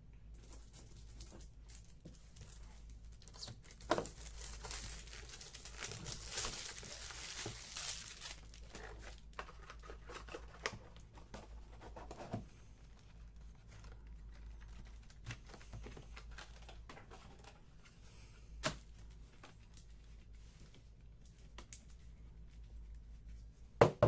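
Packaging being torn open and crinkled by hand as a sealed box of trading cards is unwrapped. The crackling is loudest in the first several seconds, and scattered clicks and taps from handling follow. A sharp knock comes at the very end.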